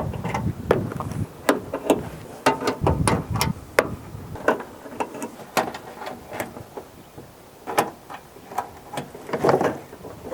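Plastic push clips being pulled out of a Honda Accord's trunk lid liner: a string of irregular sharp clicks and snaps, mixed with duller handling knocks.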